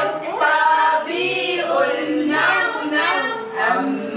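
A group of children and women singing together, unaccompanied, in short repeated phrases.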